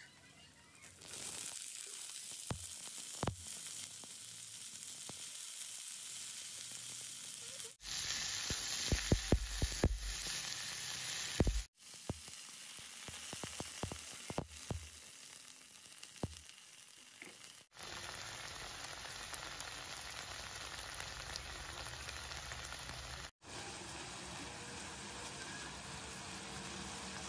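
Stir-fry sizzling in a wok: sliced shallots, garlic and red chillies frying in hot oil, then cut green beans, with a few sharp knocks of the spatula against the pan. The sizzle breaks off abruptly several times and starts again.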